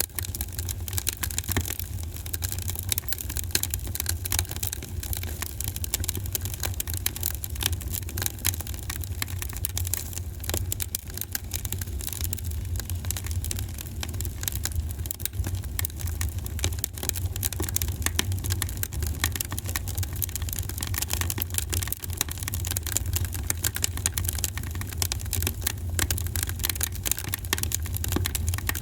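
Wood fire burning in a fireplace, crackling steadily with dense small snaps over a low rumble.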